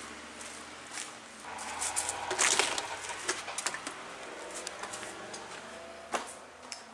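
A door being opened and walked through: a cluster of clicks from the door and latch about two and a half seconds in and a single knock near the end, over a faint steady hum.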